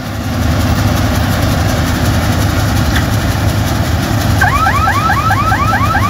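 Combine harvester's engine and threshing machinery running steadily while it cuts wheat. From about four and a half seconds in, an electronic alarm starts up over it: a rapidly repeating rising chirp, about three and a half a second.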